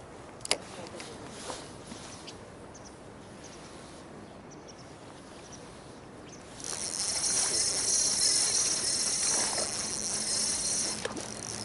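A sharp click about half a second in, then from about two-thirds of the way through, a spinning fishing reel being cranked steadily, giving a high, fluttering whir.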